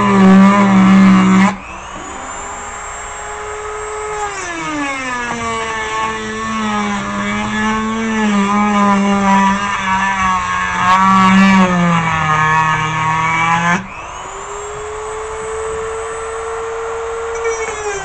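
Dremel rotary tool running at high speed and cutting into the copper piece of a microwave turntable motor. Its whine drops in pitch and gets louder as it bites into the metal, then rises and eases as it comes off, about a second and a half in and again about two-thirds through.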